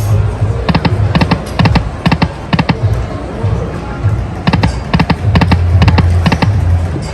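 Slot machine bonus-round sounds: short clusters of sharp clicks, two or three at a time, recurring every half second or so as the spins land, over the machine's steady low music and casino hum.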